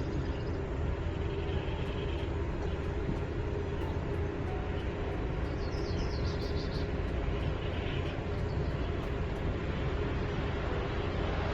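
Volkswagen ID. Buzz electric van driving: steady tyre and road noise with a low rumble, and no engine note.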